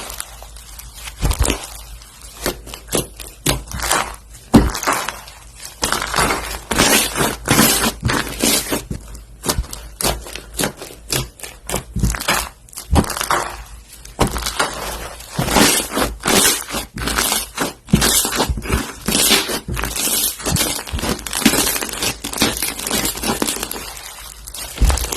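Slime being worked, giving dense runs of sharp crackling and popping clicks that come in clusters with brief lulls.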